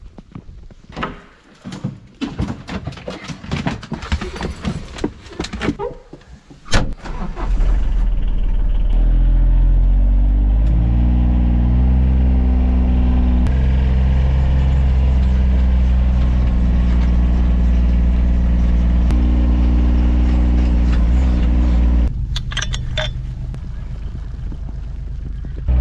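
John Deere Gator XUV 855D's three-cylinder diesel engine starting about seven seconds in, heard from inside its cab; its revs climb briefly, then it runs steadily. It is preceded by scattered crunching knocks. About twenty-two seconds in it drops to a quieter hum with a few metallic clicks.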